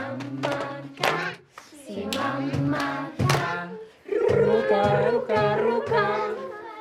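A group of voices singing together with sharp percussive beats, likely hand claps. From about four seconds in, the voices hold long notes together.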